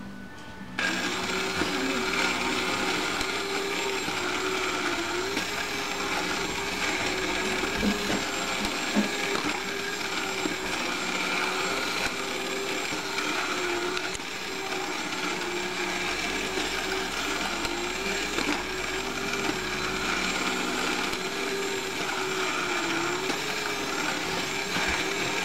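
Good Time Charlie mechanical toy running: its small electric motor and gear train whir steadily, starting about a second in as it is switched on. The pitch of the whir dips briefly every few seconds as the figure works through its bottle-raising motion.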